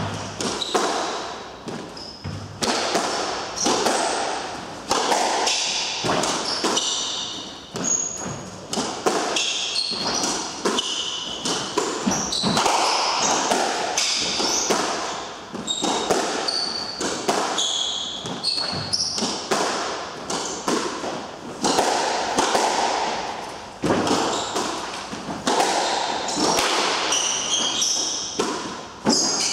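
A squash rally: the ball cracking off rackets and the court walls again and again, about once a second, with sneakers squeaking in short high chirps on the wooden floor between shots.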